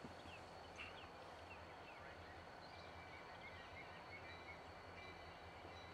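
Faint, steady low rumble of a diesel freight locomotive approaching slowly, heard as little more than a low hum, with a few faint short chirps in the first second.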